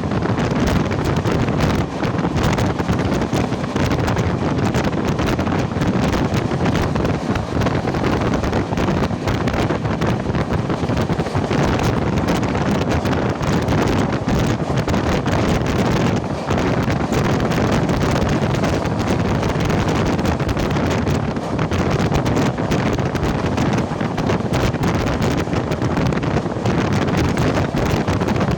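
Wind buffeting the microphone over the steady running noise of a moving express passenger train.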